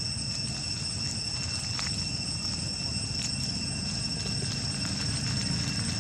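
A steady, high-pitched insect drone holding two even tones, over a low rumble, with a few faint clicks.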